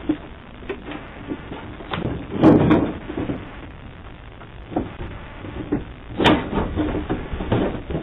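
Scattered knocks and clunks of a person handling a storage box on a wooden deck, heard through a security camera's microphone over a steady hiss. The loudest clunks come about two and a half seconds and about six seconds in.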